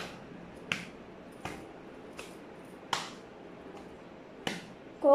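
A few short, sharp hand claps on the lap, irregularly spaced over the pause, with quiet room tone between: a singer keeping the Carnatic tala with her hand between sung lines.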